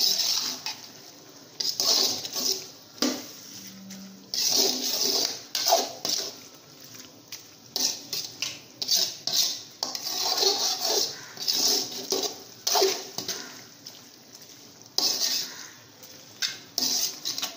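A metal ladle scraping and knocking against the metal cooking pot while a thick prawn masala is stirred. It comes in short, irregular bursts every second or two, with quieter stretches between.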